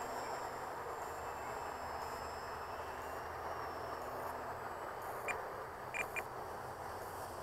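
Distant electric motor and propeller of an RC plane, a faint steady whine whose pitch drifts slowly as it flies, over open-air noise. Three short high chirps come near the end.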